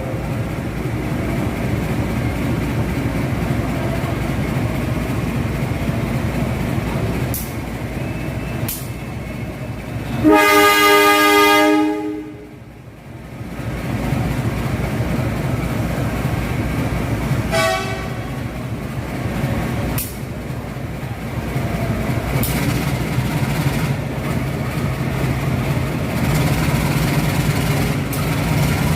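A train running through a station with a steady low rumble and a few sharp wheel clacks. Its horn sounds one long blast about ten seconds in, then a shorter blast near eighteen seconds.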